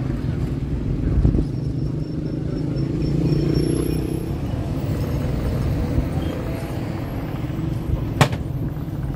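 Street traffic noise: a steady low rumble of vehicle engines, with one sharp click about eight seconds in.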